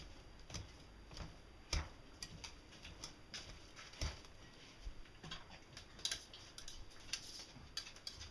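Hard-boiled eggs being mashed in a glass bowl with a metal hand masher: irregular clicks and taps of metal against glass, a few a second.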